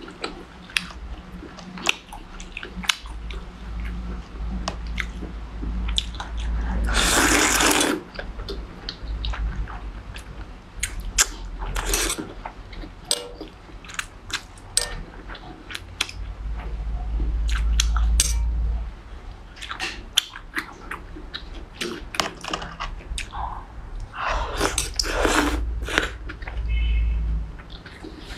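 Thin noodles slurped from a bowl of noodle soup, with wet chewing and mouth clicks in between. There is one long slurp about seven seconds in and several more close together near the end.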